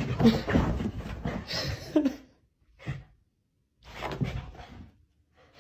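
A husky-type dog vocalizing in short calls that rise and fall in pitch, with a break of about a second and a half in the middle.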